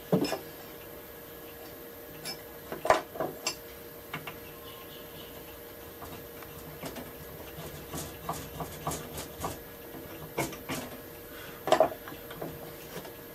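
Scattered knocks and light clinks of hand tools and a rosewood plane body being picked up and set down on a workbench, with a run of small quick ticks in the middle.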